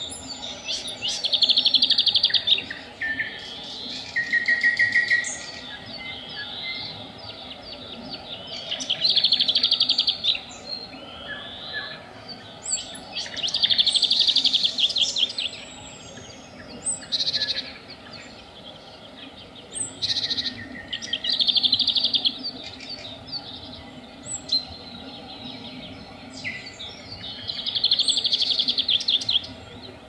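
Nightingale singing: loud phrases of fast trills and rattles, each one to two seconds long, coming about every four seconds, with short whistles and clicks in between.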